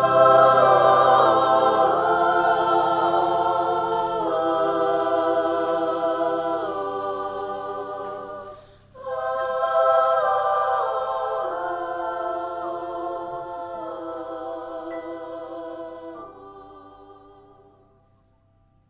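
Background music of layered voices holding sustained, wordless chords that change in steps, with a brief break about nine seconds in and a fade-out near the end.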